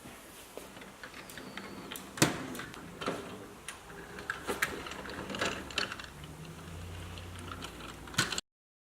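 Hard plastic toy vehicles being handled: scattered clicks and knocks, the loudest about two seconds in, then the sound cuts off abruptly near the end.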